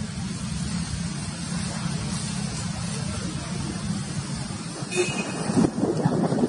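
A steady low engine drone. About five seconds in, rough crackling noise louder than the drone comes in over it.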